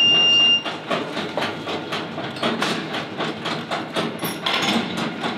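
Slaughterhouse stunning-line machinery: a steady high beep for about the first second, over rapid, uneven clanking and rattling of the metal roller conveyor and restrainer as a stunned lamb is moved through.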